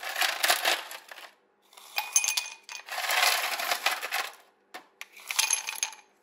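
Ice cubes dropped by hand into an empty glass tumbler, clattering and clinking against the glass and each other in several bursts as the glass fills.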